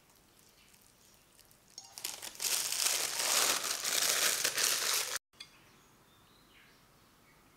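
Disposable plastic piping bag crinkling and rustling as it is handled and filled with lemon curd. It lasts about three seconds and cuts off suddenly.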